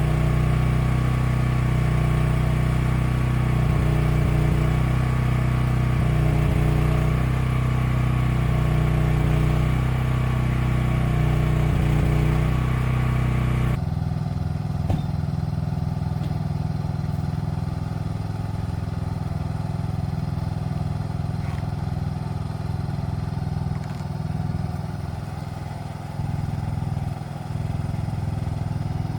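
Small engine of a mini excavator running steadily. About halfway through, the sound changes abruptly to a duller, lower engine sound.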